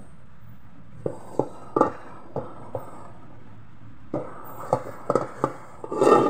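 Hands mixing and kneading minced-meat dimsum filling with flour in a metal pot, giving irregular soft knocks against the pot, with a louder bump near the end.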